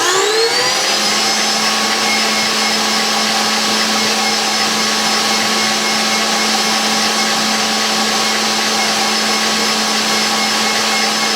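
KitchenAid Pro 600 stand mixer running at top speed (10) with an attachment fitted. Its motor whine rises over the first second as it speeds up, then holds a steady whine and hum, loud enough to read about 84 dB on a sound meter.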